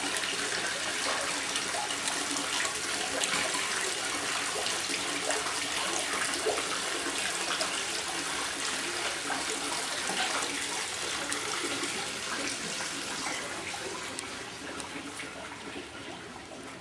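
Steady rush of running water, fading away over the last few seconds.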